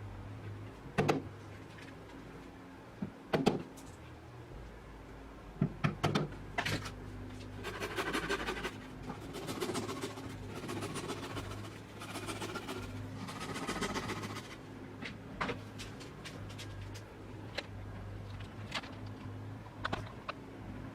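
Several sharp knocks, then about six seconds of rough rasping noise a little after the middle, with a few lighter clicks later, over a steady low hum.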